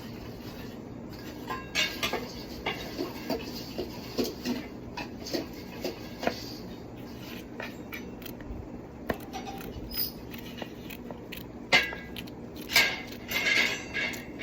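Irregular clinks and knocks of dishes, pots and utensils being handled in a kitchen, with a louder cluster of clatter near the end.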